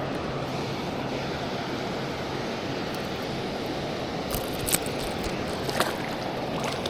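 Steady rush of water pouring over the dam spillway. A few sharp clicks cut through it about four and a half seconds in and again near six seconds.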